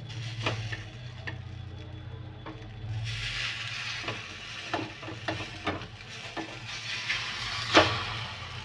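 A metal spatula scrapes and clinks against a steel pan as an egg omelette is worked loose and flipped. It gives about nine sharp clicks, the loudest near the end. The omelette sizzles in the oil, and the sizzle grows louder about three seconds in.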